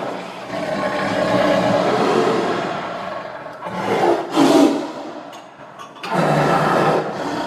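Tiger growling and roaring: a long rough growl, then a short, loudest roar about four seconds in, and another roar starting about six seconds in.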